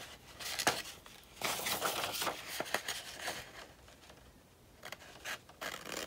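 Scissors cutting a sheet of paper in several snipping strokes, with the paper rustling as it is handled. The cutting pauses for a moment past the middle, and a few short snips follow near the end.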